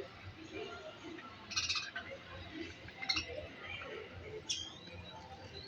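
Budgerigars chattering, with three sharper chirps about a second and a half apart.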